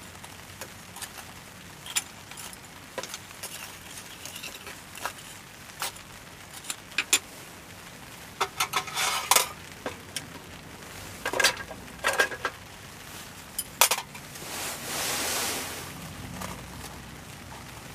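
Metal tongs clinking and scraping against burning charcoal and the clay walls of a mini shichirin grill, in scattered sharp clicks that come in clusters. Then a wire grill net is laid over the top, and there is a brief soft rushing noise about fifteen seconds in.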